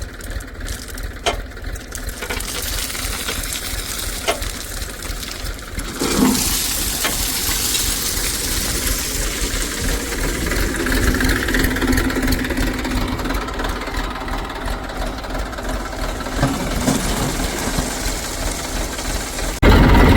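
Diesel engine of heavy earthmoving machinery running, with a few sharp knocks in the first seconds. The sound grows louder about six seconds in and jumps louder again just before the end.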